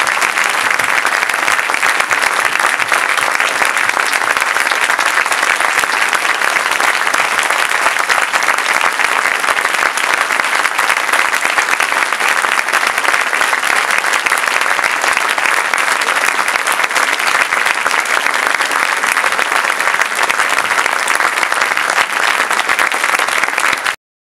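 Large audience applauding, a dense steady clapping that cuts off suddenly near the end.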